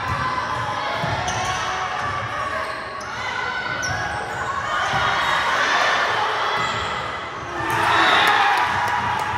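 Volleyball being played in a gym: ball hits and bounces echoing in the hall under a crowd of players' and spectators' voices. The voices swell about five seconds in and again, louder, near the end.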